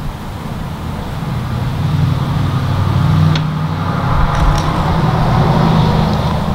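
A motor vehicle's engine running with a low, steady drone. It grows louder over the first few seconds, then eases slightly near the end, with a few light clicks over it.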